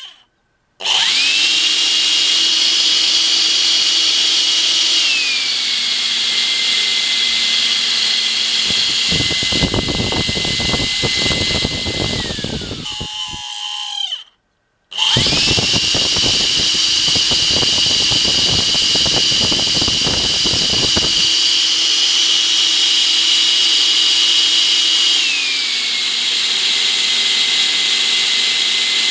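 Makita CL182FD cordless vacuum's motor is switched on, whines up to its high speed and steps down to a lower speed after about five seconds. A rough crackling rattle runs under the whine for a few seconds before the motor spins down and stops. It is started again, runs at high speed with the crackle returning, and steps down to the lower speed near the end. The crackle is the abnormal noise that the owner traced to the vacuum's worn motor.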